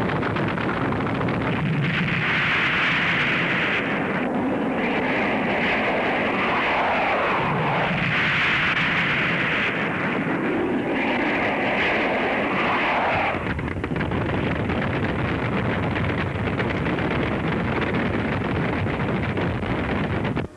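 Anti-aircraft guns firing in about four bursts of roughly two seconds each over the din of low-flying attacking jet aircraft, with falling sweeps as the jets pass. The firing stops about 13 seconds in and a steady rushing din carries on.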